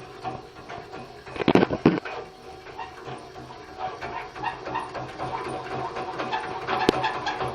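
Sewing machine running and turning a small motor used as a generator: a steady hum with rhythmic clicking, a loud burst of sound about one and a half seconds in, and a sharp click near the end.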